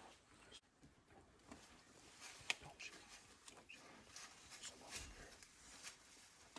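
Near silence: faint, scattered small clicks and rustles, with one sharper click about two and a half seconds in.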